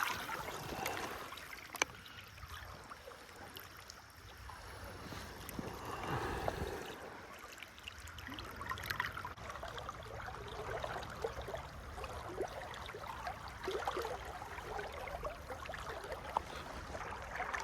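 River current flowing steadily, with scattered small splashes and ticks.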